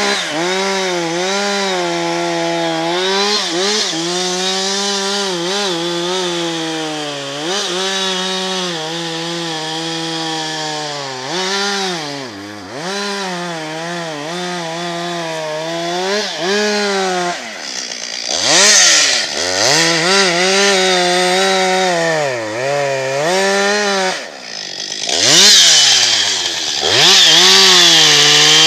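Two-stroke chainsaw cutting into a beech trunk, its engine note sagging under load and picking back up again and again. In the second half the revs drop low and climb back several times, and near the end it runs at high revs.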